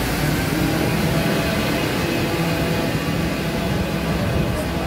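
Steady city street noise from road traffic, with engines running.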